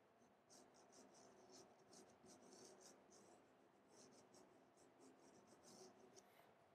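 Faint scratching of a sharpened pencil point on toned drawing paper, a quick run of short sketching strokes.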